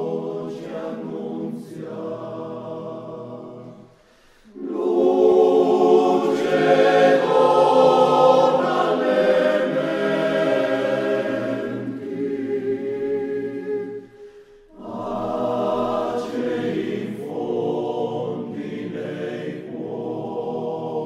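Background music of a choir singing, with two short pauses between phrases, about four and fourteen seconds in.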